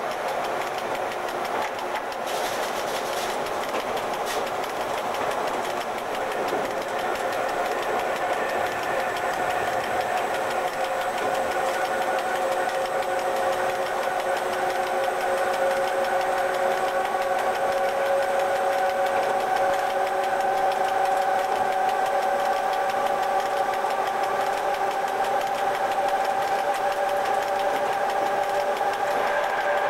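E.656 electric locomotive under way, heard from its cab: a steady whine of several tones over running noise, creeping slowly up in pitch and growing a little louder from about halfway as the train gathers speed.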